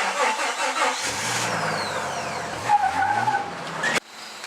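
A vehicle engine revving, its pitch rising and falling, cut off abruptly near the end.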